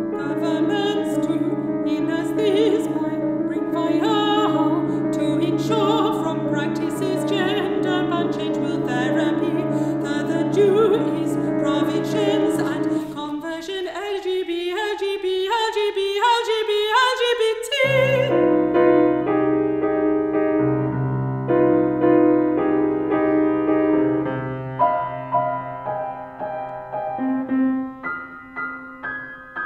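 Mezzo-soprano singing with vibrato over piano accompaniment, her line climbing in pitch a little past the middle. From about eighteen seconds in, the piano carries on alone with sustained chords that die away toward the end.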